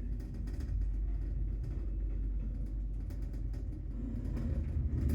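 Passenger lift running: a low, steady rumble of the car and its machinery that grows louder near the end.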